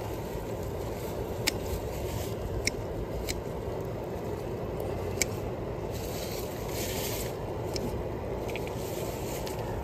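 Steady low rustling and rubbing noise with a handful of short, sharp clicks scattered irregularly through it.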